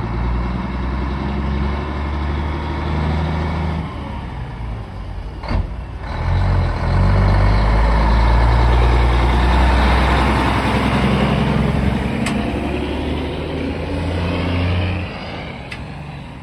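Diesel semi-trucks, a Mack among them, driving slowly past one after another. The engine note steps up and down a few times and is loudest as a truck passes close in the middle, with a brief sharp knock about five seconds in.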